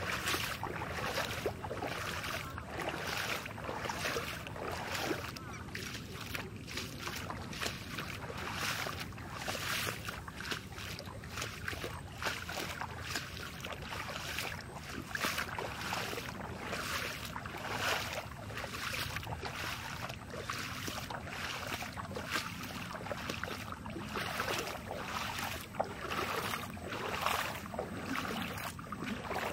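Water splashing and sloshing in rain-flooded paddy fields, a steady run of irregular splashes, with people's voices faint in the background.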